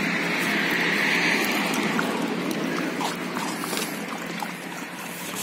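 Two stray dogs lapping milk from a plastic tub: a run of wet licking and slurping, over a steady background hum.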